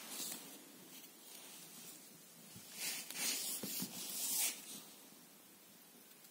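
A cat's claws scratching and rustling on a carpet as it paws at a fabric toy mouse, in a few short scratchy bursts in the middle.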